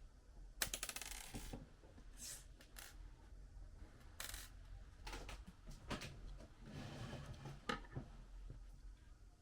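Small laptop screws and a screwdriver clicking and rattling against the laptop's bottom cover as the cover screws are put back in: scattered short clicks, with a quick run of them about a second in.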